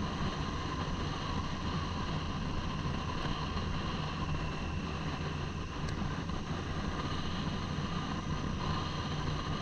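Motorcycle engine running steadily at an even cruising speed, heard from the rider's helmet with wind and road noise over the microphone.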